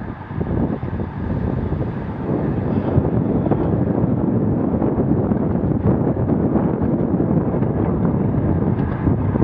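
Wind rushing over a bicycle-mounted camera's microphone at road-race speed, around 21 mph: a steady rushing noise that grows a little louder about two seconds in.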